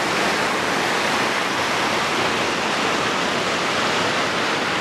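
Large fountain's water spilling over a long concrete ledge into a pool, a steady splashing cascade.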